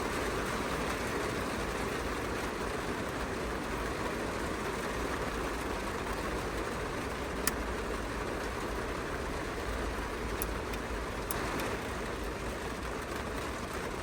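Steady road and engine noise of a moving vehicle, with a low rumble and a few brief clicks.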